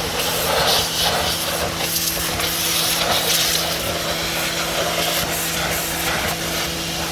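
Giraffe Tools Grandfalls electric pressure washer running with a steady motor-and-pump hum while its zero-degree nozzle blasts a jet of water against a car's wheel and tire, a hissing spray that swells and fades as the wand moves.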